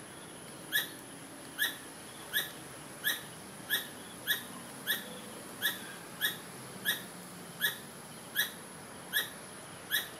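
A squirrel calling over and over, one short sharp call about every two-thirds of a second in an even rhythm, which the uploader takes for a mother calling a missing baby.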